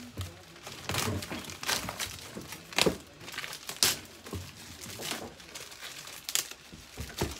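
Clear plastic film crinkling and rustling as it is peeled and pulled off a metal dish rack frame, in irregular crackles, loudest about three and four seconds in.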